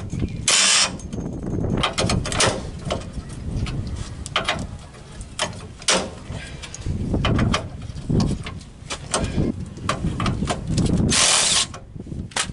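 Hand ratchet clicking and socket tools clattering on a seized rear leaf-spring U-bolt nut, with two short bursts of hiss, one near the start and one near the end.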